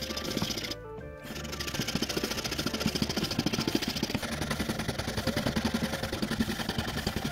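Background music over the fast, even rhythmic noise of a small workshop machine running, with a brief dip about a second in.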